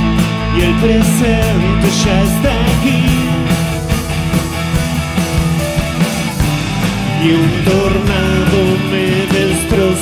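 Live rock band playing: a man singing over electric guitar and drums with cymbals, the vocal coming in two phrases with a break in the middle.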